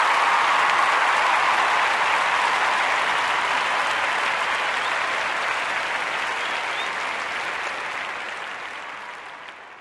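Crowd applause, many hands clapping in a dense steady patter, fading out gradually over the last few seconds.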